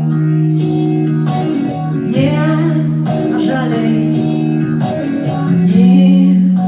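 Live rock band music: guitar chords over steady held bass notes, with a voice singing long, wavering notes over them at times.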